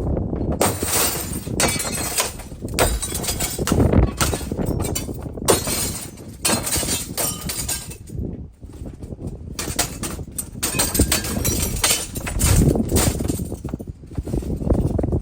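Hammer blows smashing the glass out of a plastic window frame: repeated, irregular strikes with shattering and clinking of broken glass.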